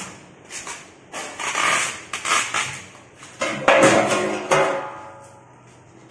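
Stainless-steel machine being handled: a string of irregular metal knocks, scrapes and clanks, with the loudest clang ringing briefly about three and a half seconds in.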